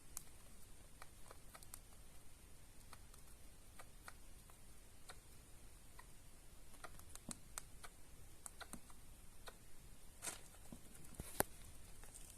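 Pet rat coughing: a string of faint, short, click-like coughs at irregular intervals, with two louder, sharper ones near the end.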